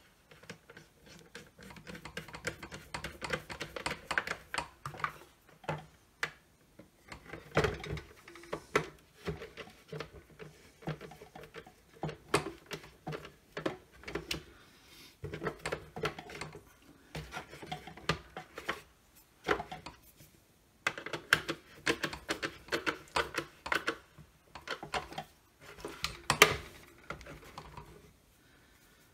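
Irregular clicking, rattling and knocking of the red plastic housing of a Milwaukee M18CV compact hand vacuum as it is handled and screwed back together with a screwdriver.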